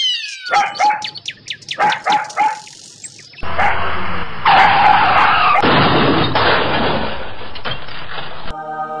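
Cartoon sound effects: a string of short barks and chirps, then about three seconds in a sudden loud rushing noise of a car speeding along, which cuts off near the end into a steady buzzing tone.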